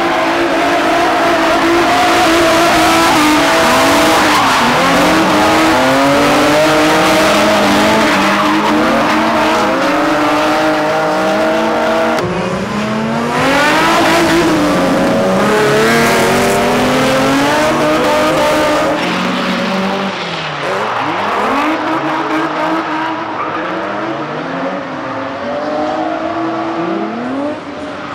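Drift cars sliding in tandem, a Nissan 350Z, a BMW E30 and a Mazda RX-7, with their engines revving up and down over continuous tire squeal. Several engine notes rise and fall at the same time, and the sound jumps abruptly twice, near the middle and about two-thirds of the way through.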